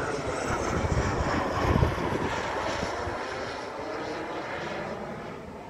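Engines of a large aircraft passing low overhead. The roar swells to its loudest about two seconds in, then fades steadily as the plane flies away.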